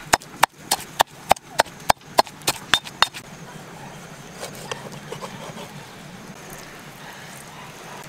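Wooden pestle pounding red chillies in a stone mortar: a quick run of sharp knocks, about three or four a second, that stops after about three seconds. A few soft taps of a knife cutting a lime on a wooden block follow.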